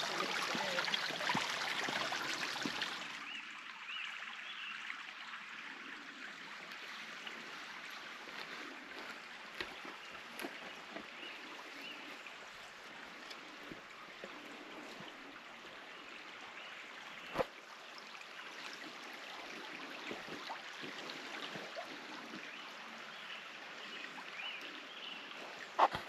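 A small forest creek running, loud at first; after about three seconds it drops to a quieter steady rush. There is a single sharp click about two-thirds of the way through.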